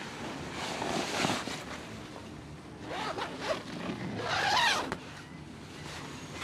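Tent door zipper being pulled open on an MSR Elixir tent, with nylon fabric rustling. It comes in three spells, the last and loudest about four seconds in.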